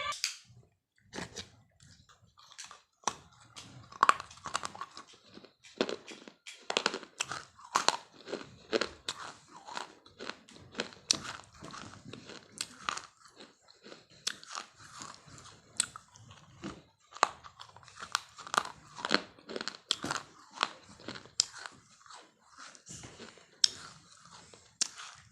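A person biting and chewing crunchy food close to the microphone: a steady run of irregular, crisp crunches, several a second.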